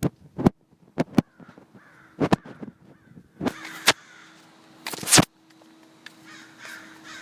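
American crows cawing, mixed with a series of sharp knocks and clicks, the loudest about two and five seconds in.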